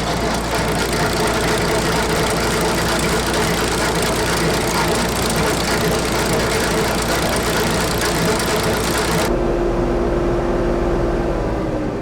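Straw blower running at full speed, a loud rush of air and straw over a steady engine drone. About nine seconds in the rushing cuts off suddenly, leaving only the steady engine hum.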